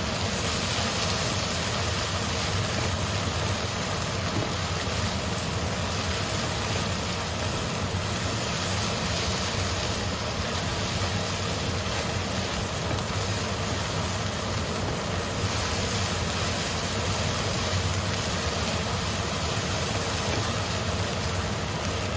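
A steady mechanical hum with a constant hiss over it.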